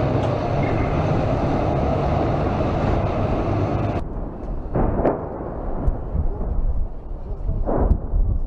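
Steady, loud engine and running-gear noise of a Z-marked armoured vehicle crossing the port quay. About halfway through it cuts off, replaced by wind buffeting the microphone with two short louder swells.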